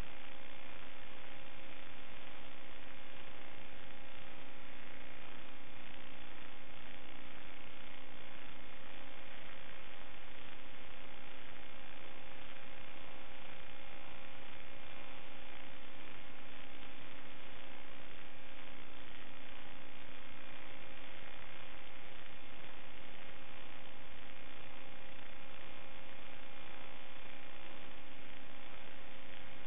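Steady electrical hum over hiss, a few fixed buzzing tones that never change in pitch or level: the noise on the audio channel of a raw DVR recording of an analog FPV video feed.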